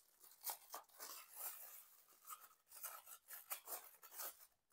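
Plastic packaging and bubble wrap crinkling in short, irregular bursts as small accessories are handled and unwrapped.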